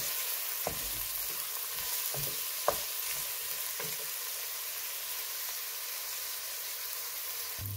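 Diced onions sizzling in hot oil in a stainless steel pot. A wooden spoon stirs and knocks against the pot a few times in the first four seconds, then the steady sizzle carries on alone.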